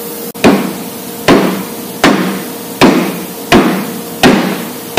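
Hammer blows driving a metal spacer bushing into a rear-axle bearing housing: about six evenly spaced metallic strikes, roughly three-quarters of a second apart, each ringing briefly.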